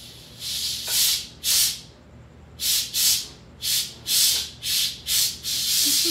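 Electric pressure cooker venting steam through its release valve in a quick pressure release: a string of short hissing spurts as the valve is worked, settling into a steady hiss about five and a half seconds in.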